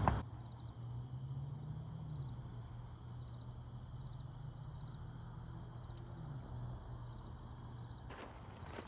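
Night outdoor ambience: a steady low hum that rises briefly in pitch twice, with insects chirping faintly in short pulsed trills. Near the end, a brief scuffing noise.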